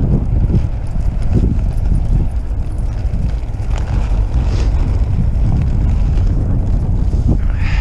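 Inline skate wheels rolling on pavement, a steady low rumble, with wind buffeting the microphone.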